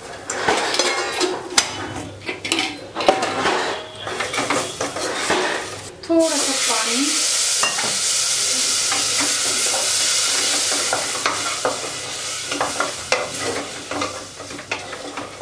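Wooden spatula stirring and scraping potatoes and spices frying in oil in a pressure cooker pan, with sizzling. About six seconds in, a sudden louder steady hiss sets in and fades after about five seconds, while the stirring strokes go on.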